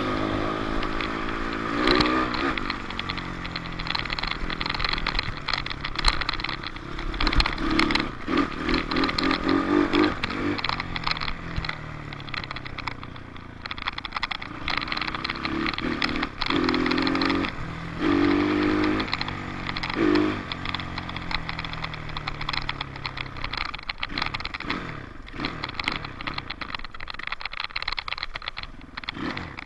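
Dirt bike engine running hard, its pitch rising and falling again and again as the throttle is worked and the gears change. Short knocks and clatter sound throughout.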